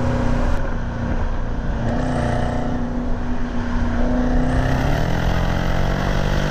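Jeep Trackhawk's supercharged 6.2-litre V8 heard from inside the cabin on track, holding a steady note, then rising in pitch about five seconds in as it accelerates hard.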